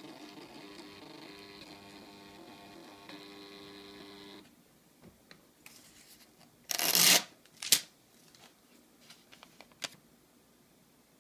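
Small thermal receipt printer in a coin-operated Wi-Fi vending machine printing a voucher, a steady whirring that stops about four seconds in when the ticket is finished. Then the paper receipt is ripped off with one loud tear, followed by a sharp click and light paper rustling.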